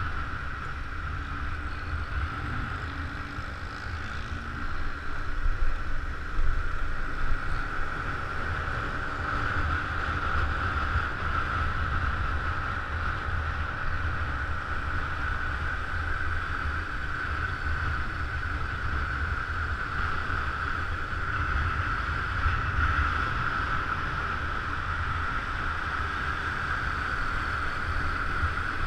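Wind buffeting the microphone on a moving motor scooter, a steady gusty rumble over a constant high hiss, with a few louder gusts about six seconds in and the scooter's engine faintly audible underneath.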